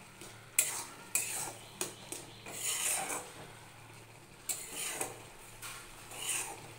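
Flat spatula stirring a thick tarka in a metal kadai, scraping and knocking against the pan about eight times, with one longer scrape about three seconds in.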